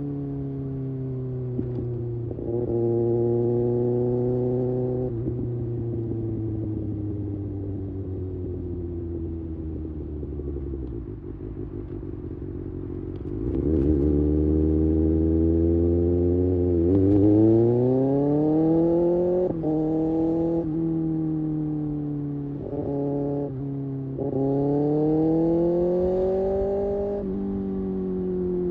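Kawasaki Ninja ZX-6R's inline-four engine on the move. The revs fall away for several seconds as the bike slows, then it accelerates hard from about halfway, rising in pitch through quick upshifts where the note drops and climbs again.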